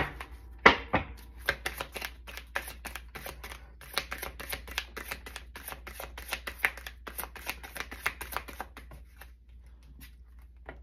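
A deck of tarot cards being shuffled by hand: a quick, irregular run of soft card slaps and clicks. The sharpest snaps come near the start, and the run stops about nine seconds in.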